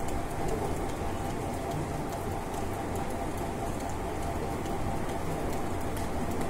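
Steady rainfall: an even hiss of rain with many sharp drip and splash ticks scattered through it.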